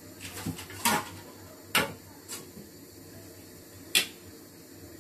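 Wooden spoon knocking against the rim of a small nonstick saucepan: a few sharp knocks, the loudest about a second in, just before two seconds and at four seconds, with softer taps between.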